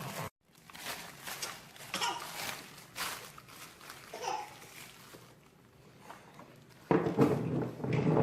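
Crinkling and rustling of plastic toy packaging being pulled and torn open, in short separate bursts. A child's brief voice comes about four seconds in, and a louder stretch of voices and handling starts near the end.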